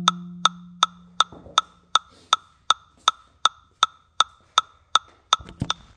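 Metronome clicking steadily at about 160 beats a minute, while a low marimba note, the last of the passage, rings and fades out over the first two seconds. A few soft knocks come near the end.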